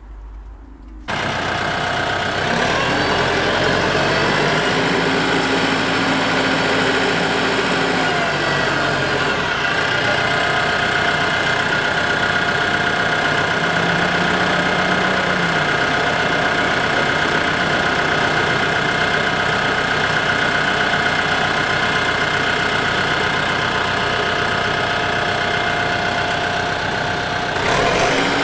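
RK 74 tractor's 74-horsepower diesel engine running steadily as the tractor drives, with a few brief shifts in pitch.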